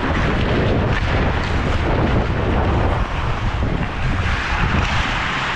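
Wind buffeting the microphone of a helmet-mounted action camera as the player skates hard, with a steady rush of noise and low rumble, under which hockey skate blades scrape and cut the ice.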